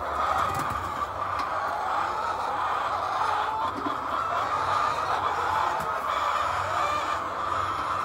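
A crowded flock of white laying hens clucking, a dense, unbroken chorus of overlapping clucks, over a low hum.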